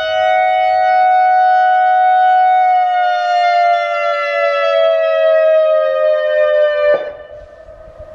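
ACA Alertronic AR-1600 electronic warning siren sounding two steady tones together. Both tones start sliding down in pitch about three seconds in, then cut off abruptly about seven seconds in. A much fainter steady siren tone carries on after the cutoff.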